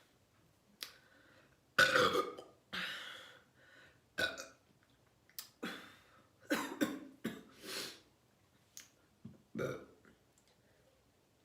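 A woman burping over and over, a string of about a dozen burps of varying length, the loudest and longest about two seconds in. The burps are gas brought up from carbonated soda.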